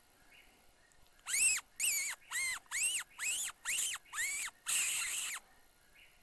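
Predator call giving a run of eight short squeals about two a second, each rising and falling in pitch, the last one longer, used to lure coyotes in. Faint repeating chirps go on underneath.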